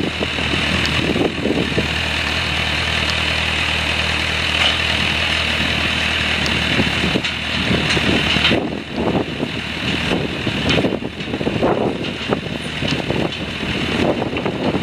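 A motor vehicle engine idling with a steady low hum, which stops about eight and a half seconds in; after that, irregular knocks and rustles.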